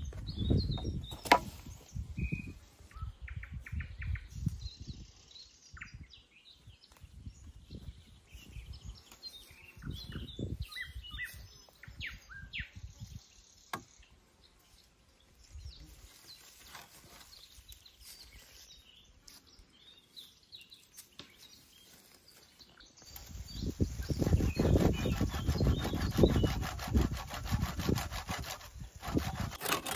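Rubbing and rustling of shelter material being handled, with scattered knocks and short bird chirps; a louder, steady stretch of rustling starts about three-quarters of the way through.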